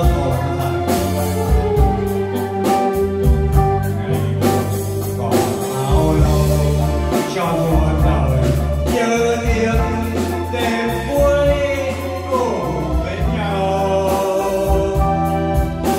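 Live band playing a song, a male singer on microphone over drum kit, keyboard, electric guitar and bass guitar, with a regular drum beat.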